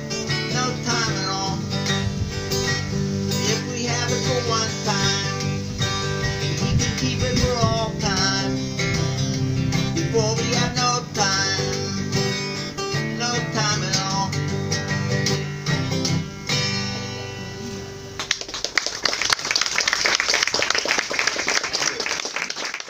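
Acoustic guitar playing the instrumental close of a song, its plucked notes dying away about three-quarters of the way in. The audience then breaks into applause, which runs on to the end.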